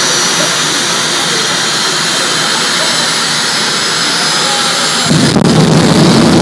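Jet engine of a jet-powered show truck running with a steady high whine and hiss, then about five seconds in the afterburner lights and the sound jumps suddenly to a much louder, deeper rumble.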